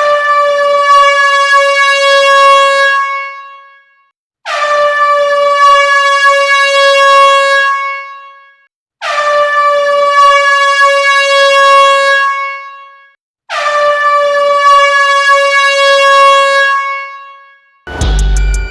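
Air horn sounding four long blasts, each about three seconds, separated by short gaps; every blast scoops quickly up in pitch as it starts and fades away at the end. Music cuts in near the end.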